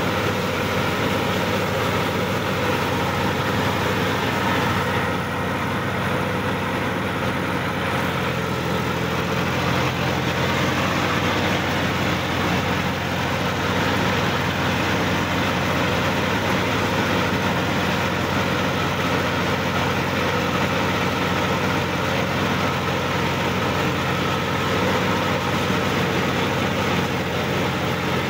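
Sonalika DI-50 RX tractor's diesel engine running steadily at an even speed, heard from the driver's seat.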